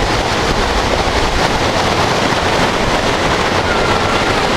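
Waterfall: the steady, loud rushing of falling water.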